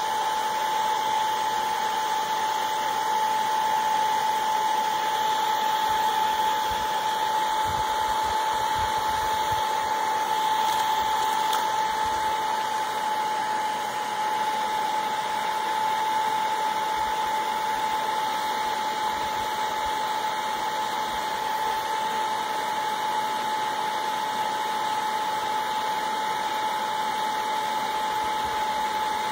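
Handheld hair dryer running steadily on high: a rush of blown air with an unchanging whine from its fan motor.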